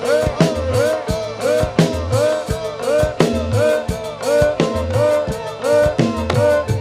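Jathilan dance accompaniment: a drum kit and drums keep a steady driving beat under a short melodic figure that repeats quickly and evenly.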